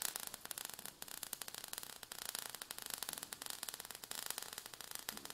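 Faint sparks sound effect: a dense, irregular crackle of tiny clicks over a steady hiss.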